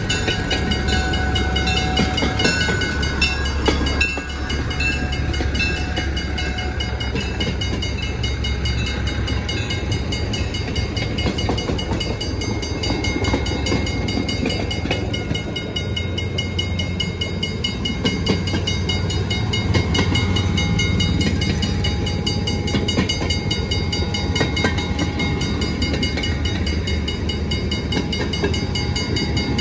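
Railroad speeders (track motorcars) running past one after another, their small engines humming steadily. A grade-crossing bell rings over them in an even, repeating pattern.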